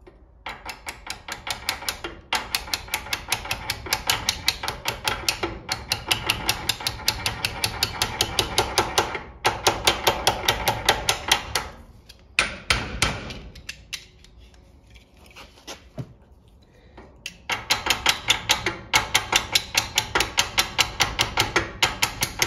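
Hammer tapping lightly and rapidly on a steel round bar laid in a crankshaft bearing cap's seal groove, seating a rope-type crankshaft seal, about five taps a second. The tapping breaks off briefly about nine seconds in, then pauses for about five seconds near the middle before resuming.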